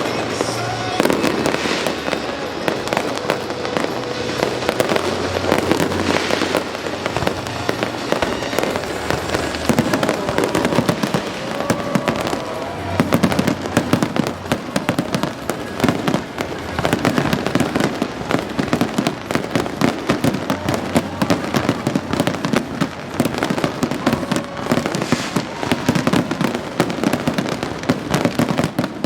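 Fireworks display going off as a continuous barrage of bangs and crackles, with music playing along.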